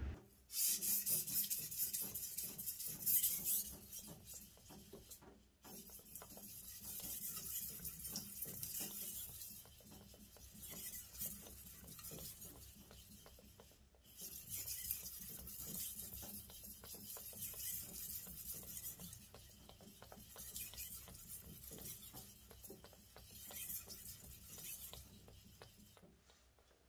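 A kitchen knife blade scraped back and forth on a green whetstone in repeated strokes, a hissing grind that swells and fades with each pass. It breaks off briefly twice, about five and fourteen seconds in.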